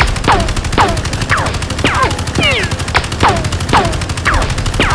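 Rapid automatic gunfire that starts suddenly, with a falling whine about twice a second, like bullet ricochets. It is fast, even shooting through the whole burst.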